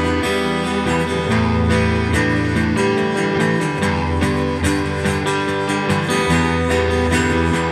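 Acoustic guitar picked and strummed together with a second guitar, playing an instrumental passage of a stoner-rock song with low held notes underneath.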